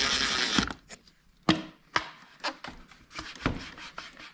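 Cordless driver spinning a worm-drive hose clamp screw loose for about a second. Then a few sharp knocks and clicks with light rubbing as the loosened rubber air intake hose is worked off.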